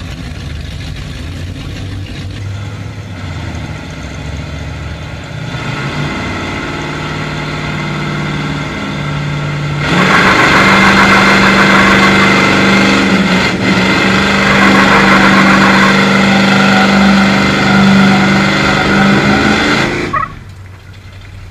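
Two V8 pickup truck engines, a Ford against a Chevy, in a truck tug-of-war pull through open headers: running lower with revs building about halfway in, then both at full throttle in a steady loud high-rev drone for about ten seconds. The sound drops off sharply near the end as the pull is decided.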